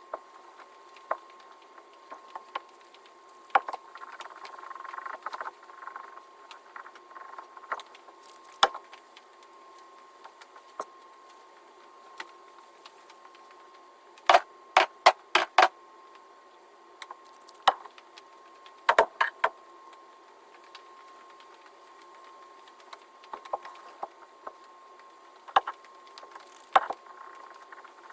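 Hand work on leather-hard clay slabs: scattered sharp taps and knocks of tools on clay and the work table, with a quick run of taps about halfway through and a brief stretch of scraping or rubbing a few seconds in. A faint steady high hum sits underneath.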